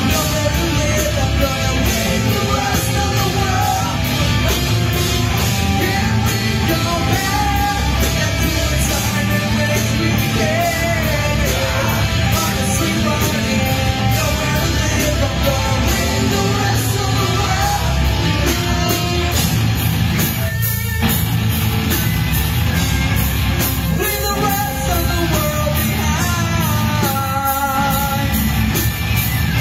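A rock band playing live: electric guitars and drums with a man singing over them, loud and steady, with a brief break in the music about two-thirds of the way through.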